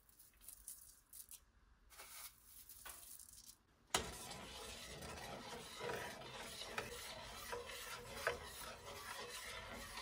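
Kitchen cooking sounds: soft scrapes and rubs of utensils, then a sharp click about four seconds in followed by a steady crackling hiss with small ticks.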